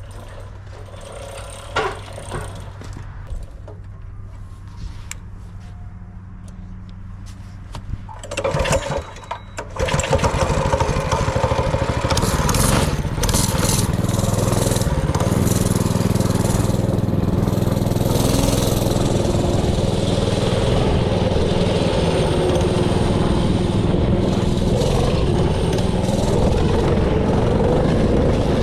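Honda GX160 single-cylinder four-stroke engine on a mini bike running at idle, then throttled up in short spurts about eight seconds in and held at high revs from about ten seconds on, running loud and steady.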